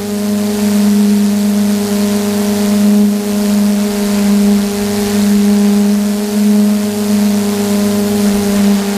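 Electric motors and propellers of an FPV drone in steady cruising flight, heard from its onboard camera: a loud, even buzzing hum that swells and eases slightly.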